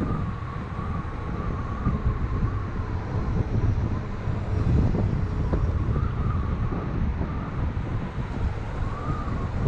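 Electric scooter ridden at speed: wind rushes over the microphone over a rumble from the tyres on the road. A thin, high whine wavers in pitch throughout and rises briefly twice, about six seconds in and near the end.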